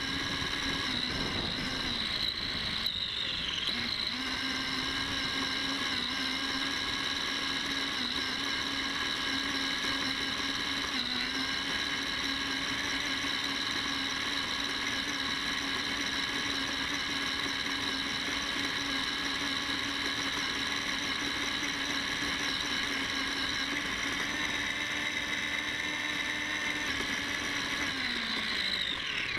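Electric RC car's motor and gear drive whining at a steady pitch while it drives. The pitch dips briefly about two seconds in and falls away near the end as the car slows.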